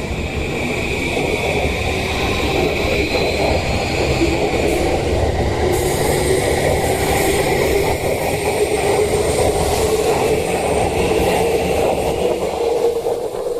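E235 series electric train running by: a steady rumble of wheels on rails with a whining high tone, one tone rising slowly in pitch over the first few seconds.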